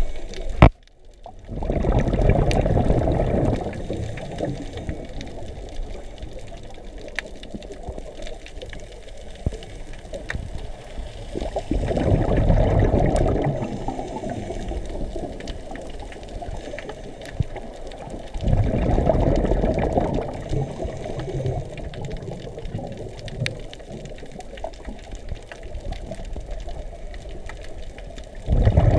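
Underwater, heard through the camera housing: a scuba diver's regulator exhalations, each a burst of bubbles rumbling past for a second or two, four times several seconds apart. Between breaths there is a quieter hiss with scattered faint clicks.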